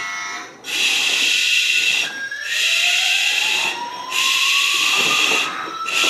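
Electronic sound effects from a toy fire truck: repeated bursts of hiss, and from about halfway a siren tone that rises slowly in pitch.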